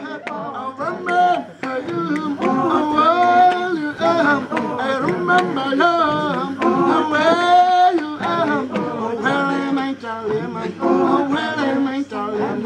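A group of voices singing unaccompanied, a cappella choral singing by a local singing group, with male and female voices together.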